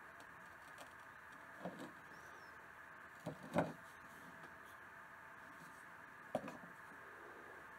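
A few soft knocks and taps as a steel knife is handled and touched down on a wooden workbench, the loudest about three and a half seconds in, over a faint steady background hum.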